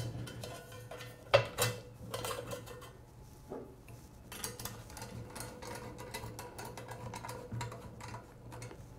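Screwdriver tightening a metal band clamp on an axle tube to secure a strain-sensor mounting block: two sharp metallic clicks about a second and a half in, then light, irregular ticks and scrapes as the clamp screw is turned.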